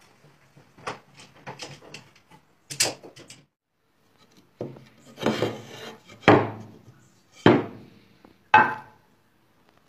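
Light clicks and knocks of clamps and wood at a workbench, then, after a short gap, Australian oak boards sliding and rubbing against each other as they are laid out by hand, with three sharp wooden knocks as boards drop against one another.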